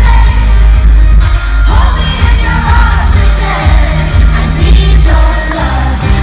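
Live pop music played loud through a concert sound system: a singer over heavy bass, heard from within the crowd.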